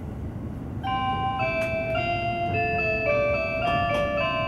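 Electronic chime melody over the train's speakers: several clear, bell-like notes stepping from pitch to pitch, starting about a second in, the tune that comes before an automated onboard announcement. A low running rumble from the train lies underneath.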